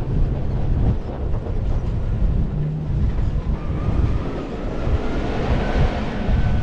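Toyota Land Cruiser 70-series (LC71) on the move: a steady, loud, low engine and driveline rumble. In the second half, a faint whine slowly rises in pitch.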